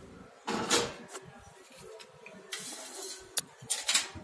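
A small spoon scraping and clinking against stainless steel bowls and a steel spice plate, in a few short scrapes with one sharp click about three seconds in.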